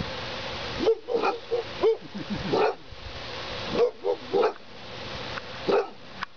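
Dog giving a series of short, high yipping barks in quick clusters, over a steady background hiss.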